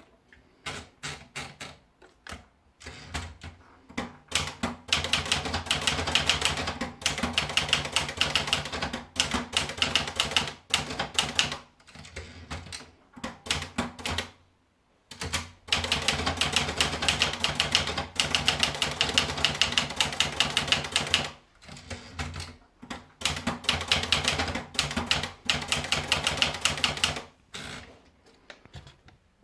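Olivetti Lettera 35 manual portable typewriter being typed on: fast runs of keystrokes broken by short pauses, with a brief stop about halfway through.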